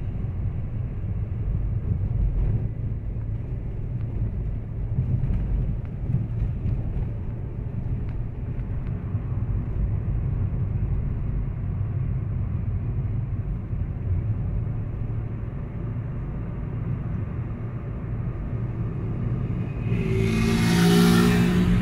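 Steady low road and engine rumble inside a moving car's cabin. Near the end, a louder rushing sound with a hum swells up, as of another vehicle passing close by.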